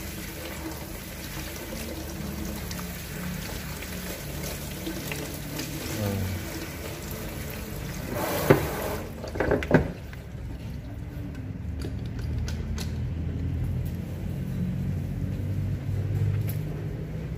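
Water spraying from a handheld shower head onto a person's hair at a salon backwash sink. It hisses steadily, then about nine seconds in there are a couple of sharp knocks and the spray stops.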